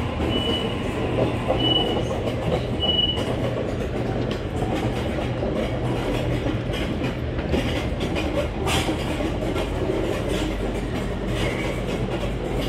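Double-deck electric commuter train standing at the platform with a steady hum. A high electronic beep sounds about once a second for the first three seconds, and footsteps and small knocks follow as passengers board.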